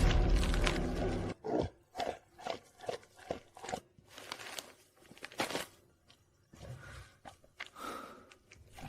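Chewing sound effect: a string of short, separate crunches about two a second, growing fainter and sparser in the last few seconds.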